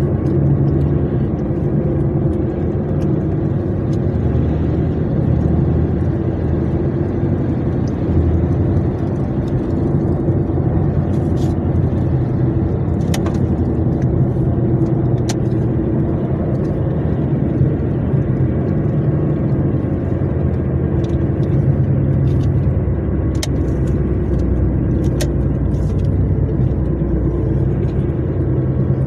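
A car driving steadily along a freshly paved road: a constant low engine hum with tyre and road noise, and a few sharp clicks scattered through it.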